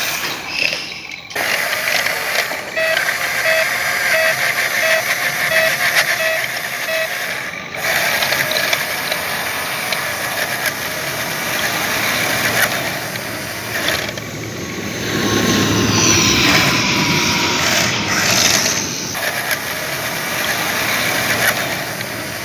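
Remote-control toy excavator's small electric gear motors whirring and clicking steadily, with a run of evenly spaced electronic beeps a few seconds in.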